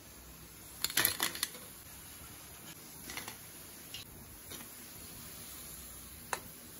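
Fried sevu sticks clattering into a perforated aluminium drainer and against its rim: a quick cluster of light knocks about a second in, then a few single taps on metal, over a faint steady hiss.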